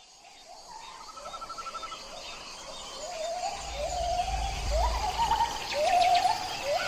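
Birds calling: a string of short notes that each rise and then level off, repeated about every half second, with a quick trill about a second in and higher chirps above them. A low rumble sounds around the middle.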